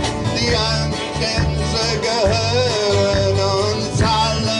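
Live band playing: electric guitars, bass guitar and drums, with a wavering lead melody line carried over the top.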